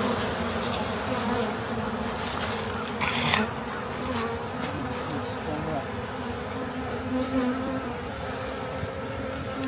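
Honey bees buzzing around an open hive, a steady hum that wavers slightly in pitch. There is a brief rustling noise about three seconds in.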